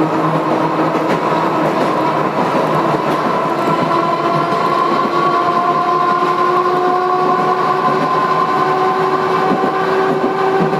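Manyosen De7070-series tram running, its old-style nose-suspended traction motors and gears whining over the rolling noise of wheels on rail. The whine creeps slowly up in pitch as the tram picks up speed.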